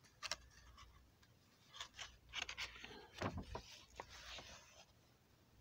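Faint rustling and crinkling of paper as a page of a drawing book is turned, a scattering of soft crisp clicks and rustles.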